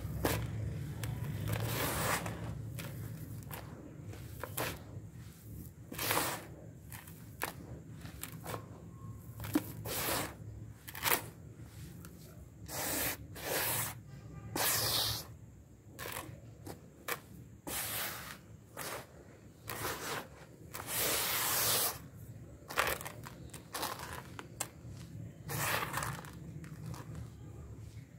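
Dry, grainy red dirt being crumbled by hand and poured back into a basin: a dozen or so short gritty rustles and crunches, one after another with brief pauses between them.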